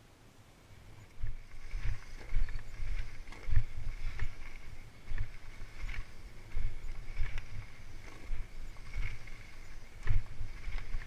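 Salsa Mukluk 2 fat bike jolting down a stepped gravel path: irregular heavy thumps and rattles, roughly one or two a second, as the fat tyres drop off each step and the bike shakes, starting about a second in. A thin steady high tone runs underneath.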